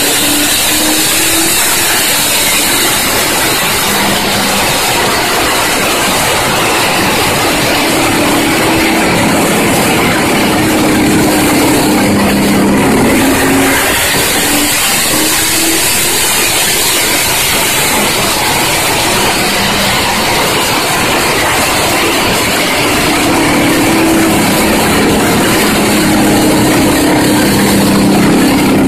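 A NASCAR Chevrolet Impala stock car's carbureted V8 running loud and steady on a chassis dyno, its pitch wavering slightly up and down.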